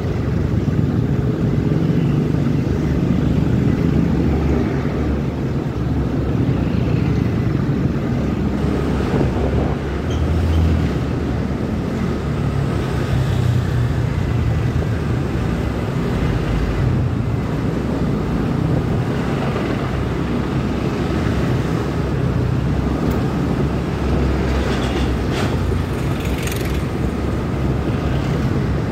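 Motorcycle riding in heavy traffic, its engine and road noise steady throughout, with large trucks running close alongside as it passes them.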